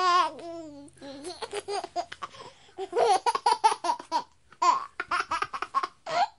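A baby laughing: a drawn-out, high voiced sound in the first second, then quick runs of short giggles, several a second, broken by brief pauses for breath.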